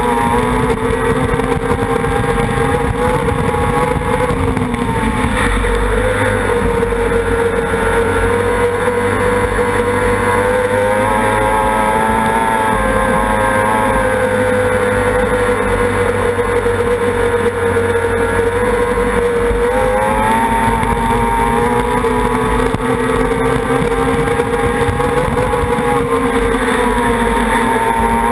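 Two-stroke V6 Mercury racing outboard, Fortins-built, on a GT-1 tunnel boat, running at racing speed. Its high engine note dips briefly and climbs back a few times, around 5 s, 13 s and 20 s in.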